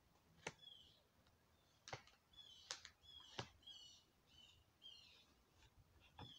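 Faint, sharp clicks of tarot cards being tapped and laid down on the table, about five in all, with several short high chirps of a bird scattered between them.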